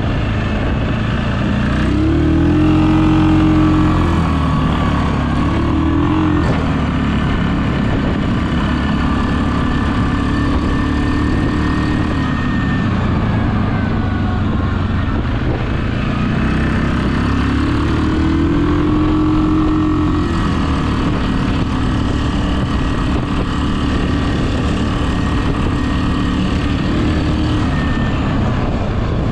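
Suzuki KingQuad 750 ATV's single-cylinder engine running steadily while riding. It revs up, holds and settles back twice, a couple of seconds in and again past the middle.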